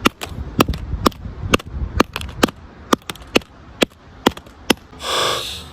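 Hammer striking an iPhone 7 again and again: sharp impacts about two a second that stop just under five seconds in, followed by a short breathy rush.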